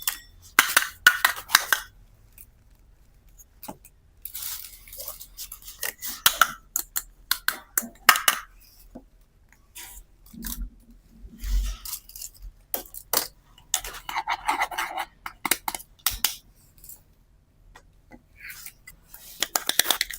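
Small plastic toy pieces being handled, with scattered clicks, clacks and short rattling scrapes.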